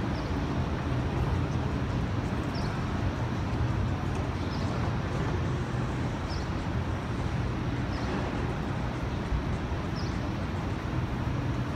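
Steady city street noise: a low rumble of traffic with the general din of a busy street.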